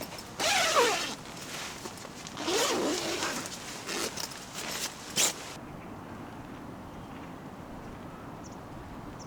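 A zipper being pulled in three quick, noisy strokes, about a second in, near three seconds and just past five seconds, each sliding in pitch.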